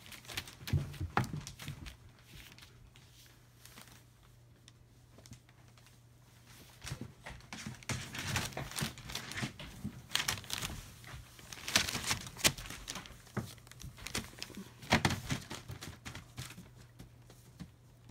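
Newspaper crinkling and rustling in irregular bursts as German Shepherd puppies move about on it, sparse at first and busiest through the middle and second half.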